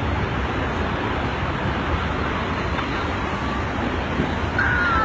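Strong wind rushing steadily, a constant rough noise with no letup. Near the end a thin, slightly falling tone sounds over it.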